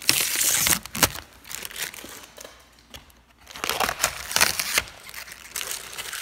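Clear plastic packaging bags crinkling in irregular bursts as they are handled and opened, with a quieter lull about three seconds in.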